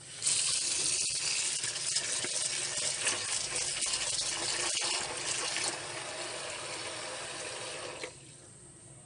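Tap water running into a plastic basin of grated young papaya, rinsing off the salt it was kneaded with. The flow starts at once, eases a little about two-thirds of the way through, and stops about a second before the end.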